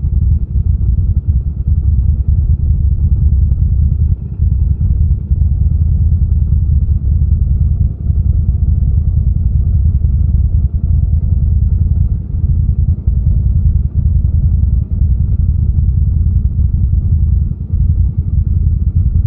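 ATV engine running with a steady low rumble.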